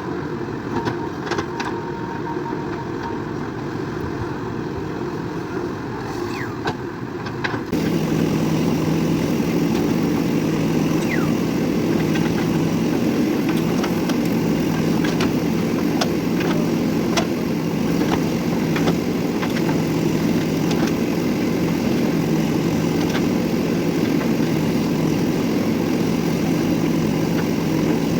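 JCB 3DX backhoe loader's diesel engine running steadily, with a few sharp knocks on top. About eight seconds in the sound abruptly gets louder, with a steady low hum.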